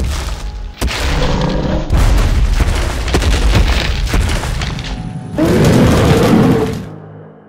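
Monster-film sound design for a computer-generated tyrannosaur: deep booms for its footsteps over dramatic music, with fresh booms about one and two seconds in. About five and a half seconds in a loud roar comes in, then everything fades away in the last second.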